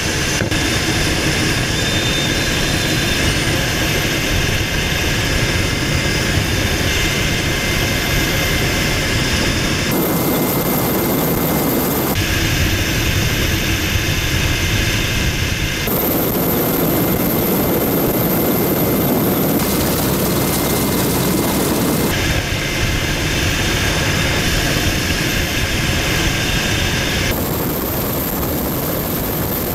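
EH-101 Merlin helicopter's turbine engines and rotor, heard loud and steady from the open cabin door during a hoist, with a steady high whine over the rushing noise. The sound changes abruptly several times, as if between clips.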